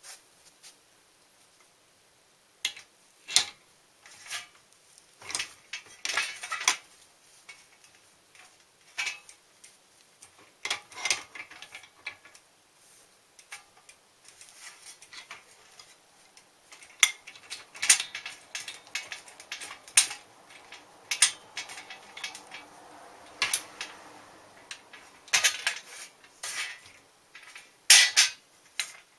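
Hand tools and steel bicycle parts clinking and clanking irregularly as they are handled, in work on a bicycle's bottom bracket.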